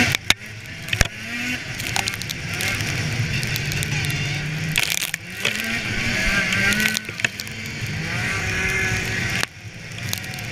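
Polaris snowmobile engine running under way on the trail, its pitch climbing and falling as the throttle is worked, dropping off briefly just after the start, about five seconds in and again near the end. A few sharp knocks come through over the engine.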